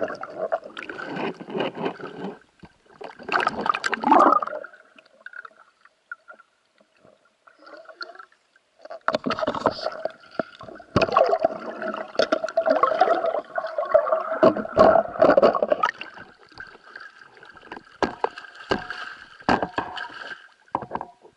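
Muffled underwater sloshing and gurgling picked up through a waterproof camera housing, with many sharp knocks, ending in splashing as a speared carp is brought up to the surface.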